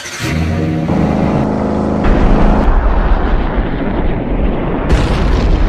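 A sudden loud blast-like onset, followed by heavy continuous rumbling. A steady droning tone runs under it for the first two and a half seconds, shifting pitch once about a second in.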